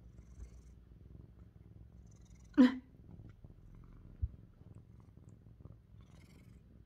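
Lynx point Siamese cat purring steadily and low while being brushed. A short, loud sound cuts in about two and a half seconds in, and a soft thump comes about a second later.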